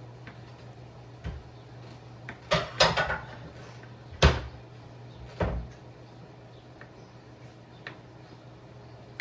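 Kitchen knocks and clatter, like cabinet doors and dishes being handled: a quick run of knocks about two and a half seconds in, a single sharp bang about four seconds in and another knock a second later, over a steady low hum.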